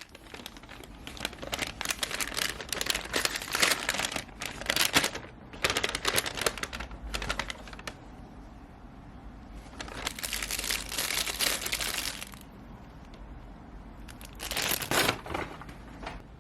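Crinkling and rustling of packaging being handled, in three stretches: a long one through the first half, a shorter one a little past the middle, and a brief one near the end.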